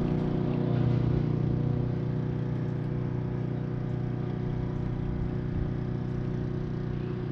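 A steady, low mechanical hum made of several fixed tones, like a motor running at a constant speed; it swells slightly about a second in.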